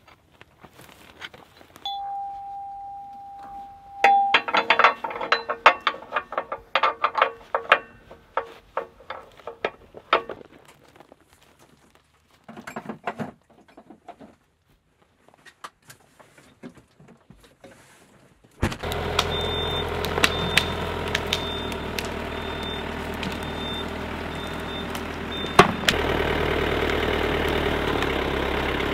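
A steady tone sounds for about two seconds, then comes a run of rattling clicks. About two-thirds of the way in an engine starts up and runs steadily, with short regular high beeps over it for a few seconds.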